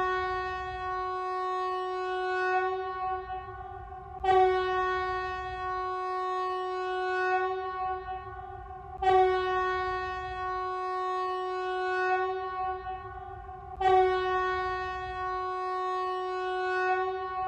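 Emergency alert alarm tone: a steady, buzzy, horn-like tone held for about four and a half seconds at a time. It restarts with a sharp onset about every five seconds, four times over.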